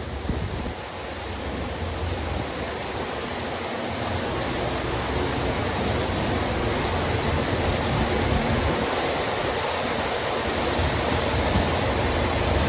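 Stroked 462 cu in Pontiac V8 crate engine running as a dense, even rush of sound with heavy low rumble, growing steadily louder throughout.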